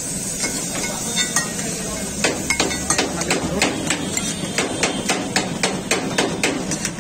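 A steel spatula strikes rapidly on a flat iron griddle (tawa), chopping and spreading food, about four sharp taps a second from about two seconds in. Butter and egg sizzle faintly underneath.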